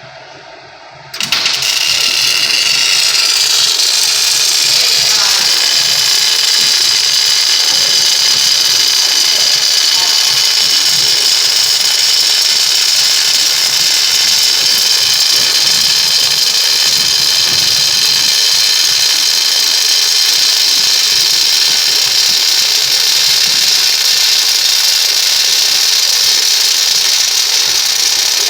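MIG welding arc striking about a second in and then burning steadily as a weld bead is laid: a loud, even hiss. The welder is set to wire feed speed 325 on heat setting E and shielded with 75% argon / 25% CO2 gas.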